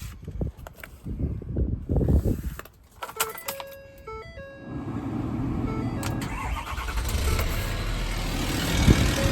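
A few knocks, then a run of electronic dashboard chime tones. The Ford F550's 6.7 Power Stroke V8 diesel then cranks, starts about five seconds in and settles into a steady idle.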